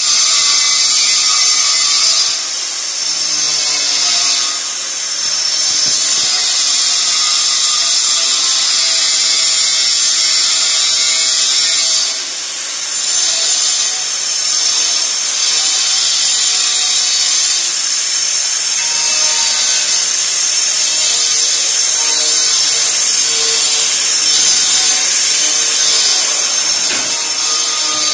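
A power tool running steadily with a loud hiss, easing off briefly a few times.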